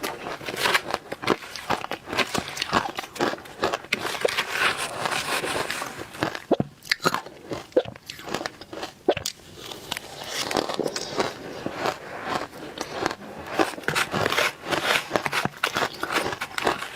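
Close-up crunching and chewing of powdery frozen matcha ice: dense, irregular crunches with sharper cracks now and then.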